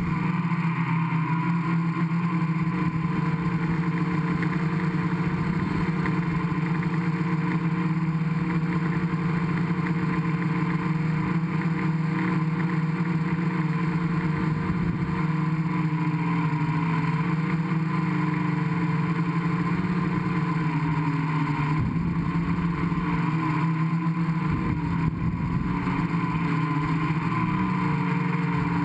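Gaui 500X quadcopter's four brushless motors and propellers humming steadily in flight, heard from the camera mounted on the frame, with a low rumble underneath that comes and goes.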